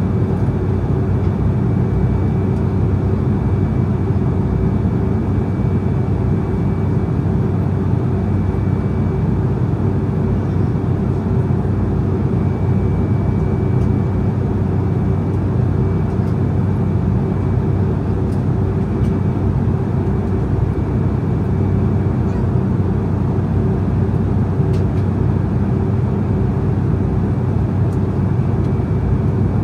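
Steady in-flight cabin noise of an Embraer E190 jet airliner with GE CF34 turbofans: a dense, even rush of airflow and engine with a low steady hum and a faint high whine.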